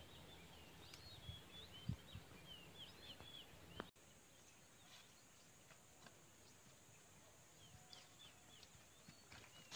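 Faint outdoor ambience: small birds chirping in short twittering calls, with a couple of soft thumps. About four seconds in the sound changes abruptly to a steady thin high hiss, with only a few chirps.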